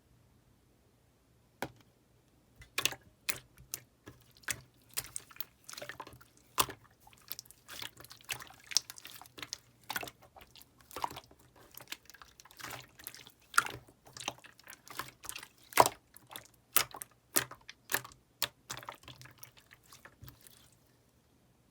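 Slime being squished and worked by hand, giving irregular wet clicks and small popping sounds, several a second. They begin about two seconds in and stop shortly before the end.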